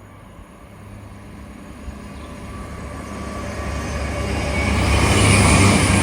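Class 221 Super Voyager diesel multiple unit approaching at speed, its diesel engines and wheels growing steadily louder until it is close by near the end.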